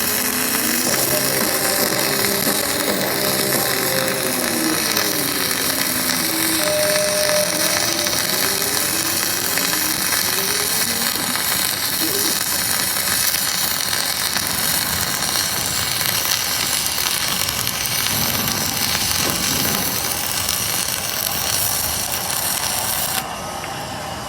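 Self-shielded flux-core arc welding with Innershield wire fed by a wire feeder: a steady, loud crackling arc. It stops abruptly near the end, when the weld pass ends.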